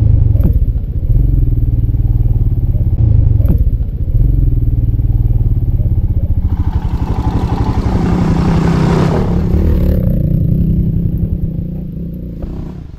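Royal Enfield Himalayan's single-cylinder engine running under load as the bike climbs a rough dirt trail, heard from the rider's seat. A rushing noise rises over the engine a little past the middle for about three seconds, and the sound fades near the end.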